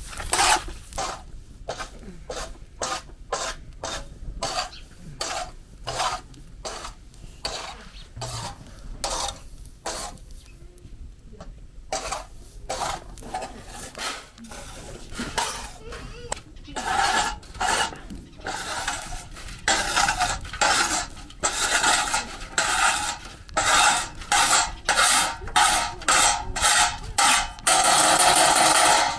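A metal spatula scrapes and stirs dried acorn skins on a hot iron griddle, in repeated short scraping strokes. The strokes ease off about a third of the way in, then build to a long continuous scrape near the end.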